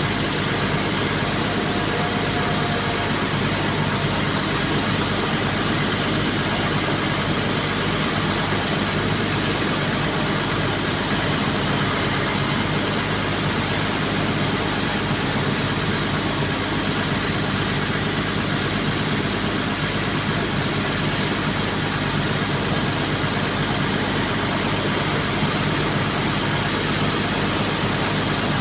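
Bulldozer's diesel engine running at a steady, unchanging speed, with no revving or change in pitch.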